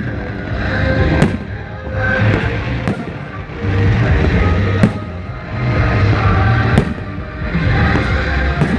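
Music playing, with sharp firework bangs cracking over it about every two seconds.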